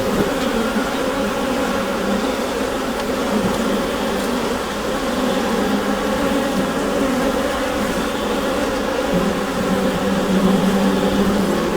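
Honeybees humming inside a hive: a dense, steady drone of many wingbeats with a low buzzing pitch.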